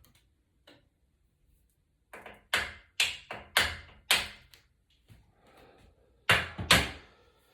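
Light hammer taps on a knife blade held against the crazy-glued home-button pads, knocking the iPad home button loose. Four sharp taps about half a second apart, a pause, then two more.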